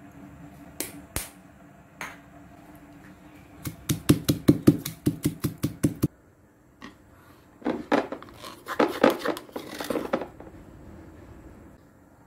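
Stone pestle pounding garlic, coriander root and pepper in a granite mortar. A few single knocks come first, then a fast run of strikes, about six a second, that stops suddenly about six seconds in, and a second burst of pounding follows a couple of seconds later.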